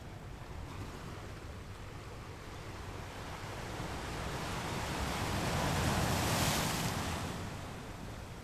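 Ocean waves: a low steady rumble of surf, with one wave swelling and breaking into a hiss in the second half, then washing away.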